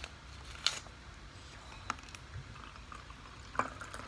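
A few light clicks and taps as a tea bag is handled over a glass mug, then cold water starting to pour into the glass near the end.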